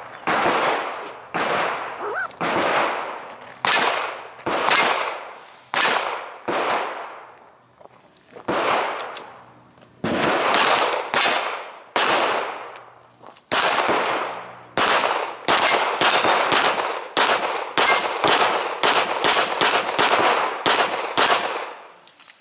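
Semi-automatic pistol fired in a long string of about thirty shots, each trailing off in a short echo. The shots come about one a second at first, with short breaks about 8 and 13 seconds in, then speed up to two or three a second near the end.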